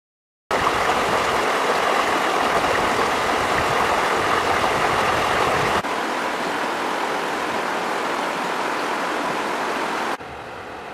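Shallow river rushing over rocks in white-water rapids, a steady rush of water that starts suddenly about half a second in. It steps down in level twice, near the middle and near the end.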